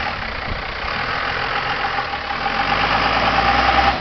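Dodge Ramcharger's engine working under load as the truck crawls up a rock ledge, the revs and level climbing over the last second and a half while the tires slip on the rock.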